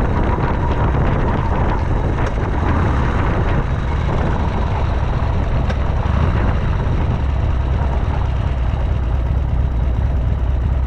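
Harley-Davidson XLH883 Sportster's air-cooled V-twin engine running steadily, with wind noise on the microphone.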